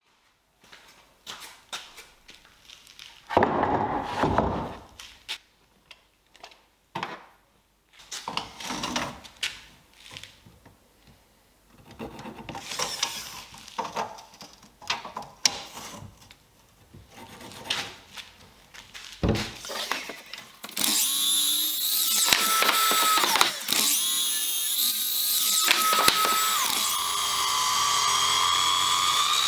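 Woodworking shop sounds: scattered knocks and short bursts of tool noise on wood, then from about twenty seconds in a power tool runs continuously, its whine shifting in pitch.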